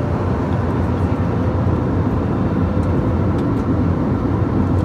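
Steady cabin noise of an airliner in flight: an even, loud low rumble that does not change.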